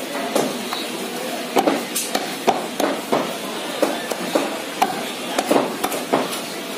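Large butcher's knife striking a wooden log chopping block again and again while cutting goat meat: repeated sharp knocks at an uneven pace.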